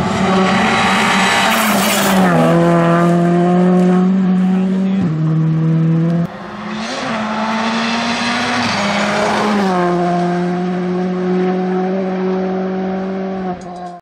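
Skoda Fabia R5 rally car's 1.6-litre turbocharged four-cylinder engine running hard on a stage. Its pitch holds level and steps down and back up with gear changes, with a sudden break about six seconds in where a second pass begins.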